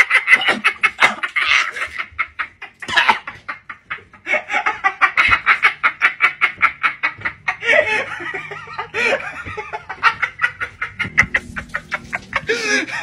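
A man laughing hysterically: a rapid, high-pitched cackle in long fits, with a short break about three and a half seconds in.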